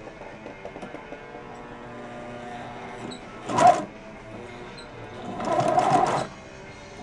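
Sewing machine stitching in short runs, a brief burst about halfway through and a longer one of about a second near the end, as red piping is sewn onto a quilted vinyl seat cover.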